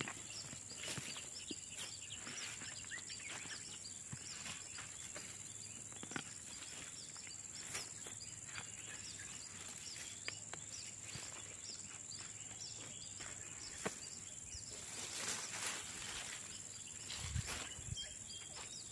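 A steady high insect drone with rapid, repeated short chirps, over scattered rustles and snaps of peanut plants being pulled from dry soil and handled, with a soft thump near the end.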